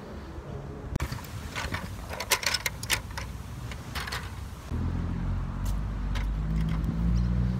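A few sharp crackling clicks, then from about five seconds in a motor vehicle's engine rumble that grows louder as it approaches.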